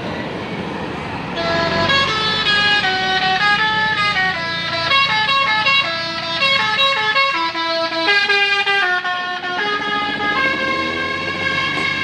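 Bus 'telolet basuri' musical horn playing a tune of stepped, held notes, starting about a second and a half in, over the bus engine running.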